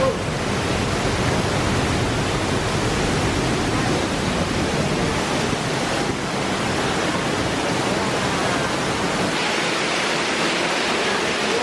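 A tall waterfall pouring into a narrow rock gorge: a loud, steady rush of falling water. About three-quarters of the way through, the deep rumble drops away and the hiss sounds thinner and brighter.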